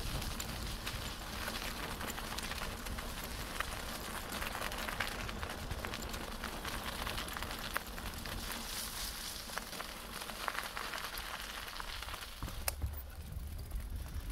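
Bicycle tyres rolling over a gravelly forest track, a steady crackling hiss with a low rumble underneath, and one sharp click near the end.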